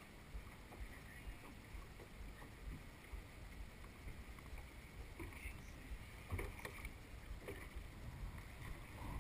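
Faint low wind rumble on the microphone and light water lapping around a dragon boat's hull as the crew sits still, paddles poised, with a few faint knocks in the second half.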